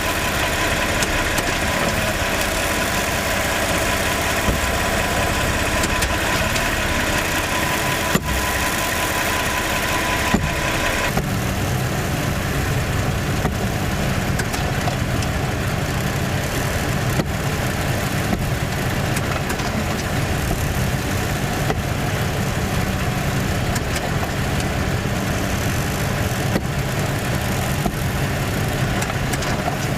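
Toyota RAV4 running steadily, with a few faint knocks through it: the clunk whose cause the owner has not found despite replacing almost everything. About eleven seconds in the sound turns deeper and duller.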